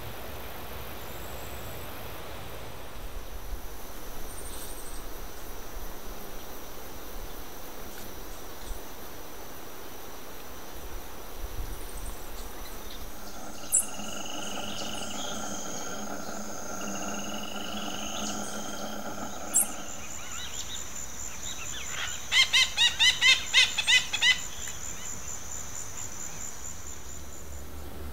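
Tropical forest ambience with a steady high insect drone setting in partway through. Two sharp clicks sound along the way. Near the end comes a run of about eight loud pitched calls in quick succession.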